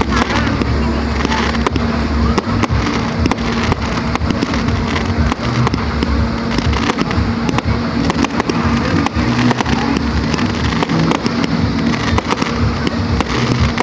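Aerial fireworks bursting in quick succession, a continuous run of sharp bangs and crackling over a steady low hum.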